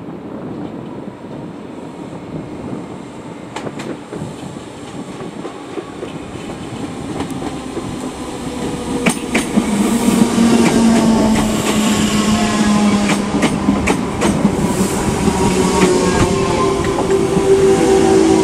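Merseyrail Class 507 electric multiple unit arriving at a platform: its rumble grows steadily louder as it nears, the wheels click over rail joints and points, and from about halfway a set of whining tones falls slowly in pitch as the train slows.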